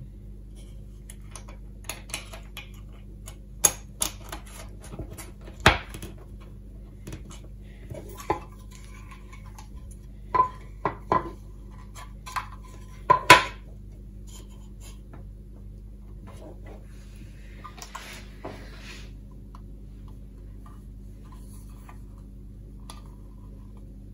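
Small stainless steel nuts, bolts and washers clicking and clinking against a plastic enclosure as they are handled and fitted. A scatter of sharp clicks, with a few brief metallic rings about ten to thirteen seconds in, then a short rustle of handling.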